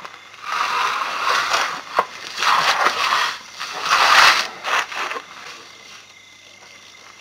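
Leafy branches rustling and crackling in several rough bursts as an elephant pulls at the tree's foliage with its trunk, with a sharp snap about two seconds in. The bursts die away about five seconds in.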